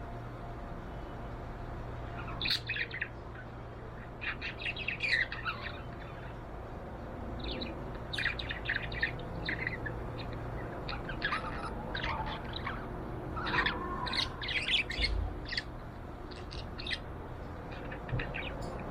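Pet budgerigar chirping and warbling in short bursts of quick, high chirps, with pauses between the bursts, over a steady low hum.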